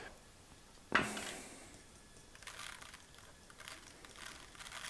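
Caraway seeds being shaken from a small spice jar onto pork rind, heard as faint, scattered rustling. A single sharp click comes about a second in.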